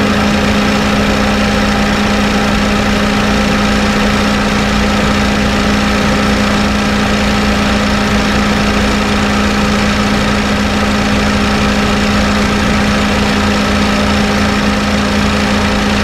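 Honda Fit GD3's engine idling with the air-conditioning compressor engaged: a loud, steady hum. The owner has heard a rumbling from the compressor and puts it down to a slightly worn compressor rather than an overcharge of refrigerant.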